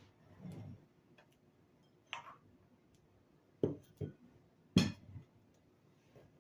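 Fork clinking and knocking against a plate or bowl: four short, sharp knocks spread out over a few seconds, the loudest about five seconds in.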